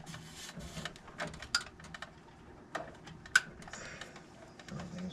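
Irregular clicks and knocks of metal furnace parts being handled and fitted back into place, with two sharper knocks about a second and a half and three and a half seconds in.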